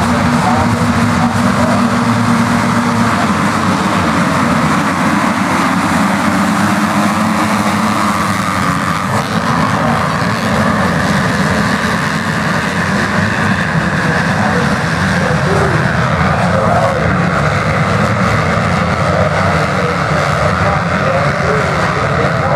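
A pack of motocross bikes at a race start, many engines revving and accelerating together in a loud, steady din.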